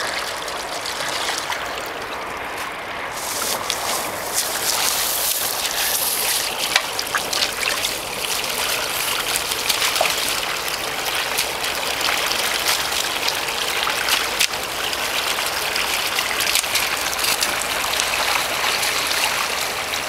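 Muddy water running and trickling steadily into a freshly dug pond hole, with a few short clicks.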